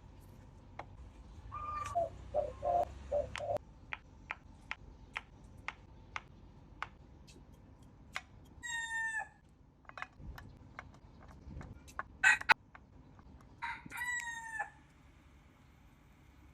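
A rooster crowing twice, short crows about halfway through and again near the end, with a run of clucking calls about two seconds in. Scattered sharp clicks throughout, and one loud sharp knock just after twelve seconds.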